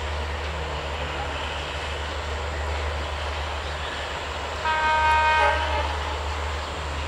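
Train horn sounding one blast of about a second, a little past halfway, over the steady running rumble of a passing passenger train.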